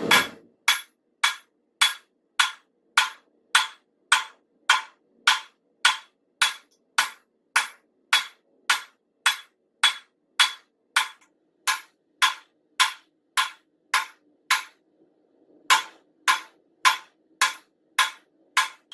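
Hand hammer striking a railroad spike on an anvil while it is forged, about two blows a second, each a sharp clang with a short high ring. The blows pause briefly about three-quarters of the way through, then resume.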